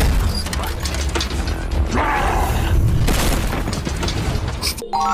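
Action fight soundtrack: heavy crashes, thuds and metallic clanks over a low rumble and music, as in a superhero brawl between Hulk and an armoured Hulkbuster suit. It breaks off abruptly near the end.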